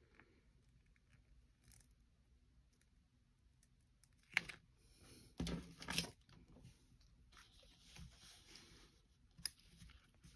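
Faint handling of a small sticker and plastic Beyblade parts: soft clicks and a few short crinkling, peeling rustles, the loudest about four and a half to six seconds in.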